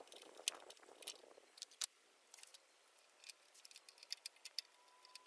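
Faint scattered clicks and ticks of a hand wrench working a bolt under a mini excavator, coming more quickly about three seconds in.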